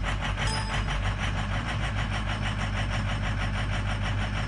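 Ford 6.0L Power Stroke V8 turbodiesel idling cold with an even, fast pulsing, heard from inside the cab. Its injector fuel compensation is switched off for a power-balance test, and injectors 1, 3 and 7 are out of balance, the cause of the customer's rough cold start.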